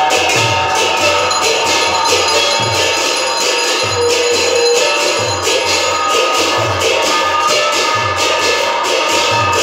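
Temple aarti accompaniment: bells and cymbals clanging in a fast, even rhythm with a continuous metallic ringing, over low drum beats.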